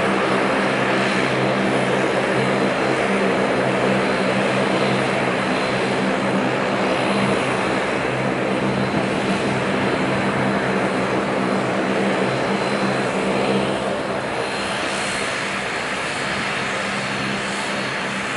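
Bombardier Dash 8 Q400's twin turboprop engines running at taxi power: a steady, loud propeller drone with a thin high turbine whine over it, easing slightly about fourteen seconds in as the aircraft moves away.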